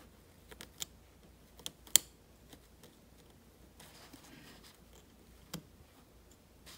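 Seam ripper cutting basting stitches in fabric piping: a few small sharp clicks, the loudest about two seconds in, with faint fabric rustling a little past the middle.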